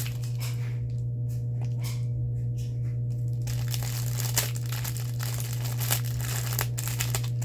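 Small plastic packaging bags crinkling and rustling in the hands, in scattered crackles that thicken in the second half, over a steady low hum.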